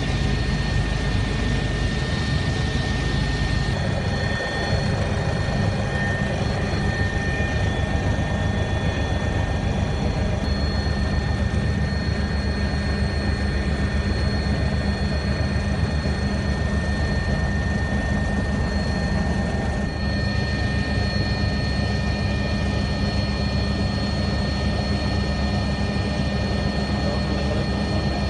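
Steady aircraft engine noise heard from inside the cabin: a low rumble with a high turbine whine on top, the whine's tones shifting slightly twice.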